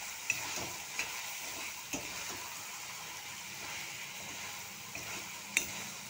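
Chicken pieces frying in a pan with a steady sizzle while a spatula stirs them, the chicken's own water almost cooked off. A handful of short sharp clicks, about five, come from the spatula striking the pan.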